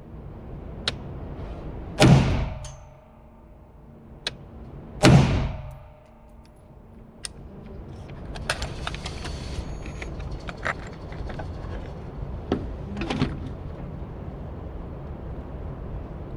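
Two rifle shots about three seconds apart, each a sharp crack with a long echoing tail, followed by lighter clicks and metallic rattling.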